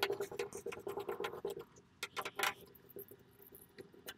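Antenna rods being screwed by hand onto the threaded metal prongs of a flat-panel TV antenna: rapid small clicks and scrapes of the threads, densest in the first second and a half, then a few scattered clicks.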